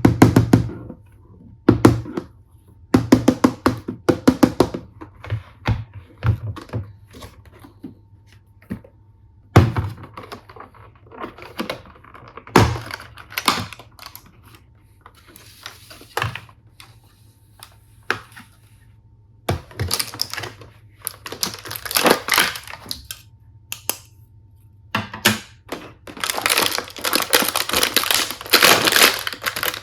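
Plastic toy tool pieces and packaging being handled: a long run of sharp clicks and knocks, with stretches of rustling later on.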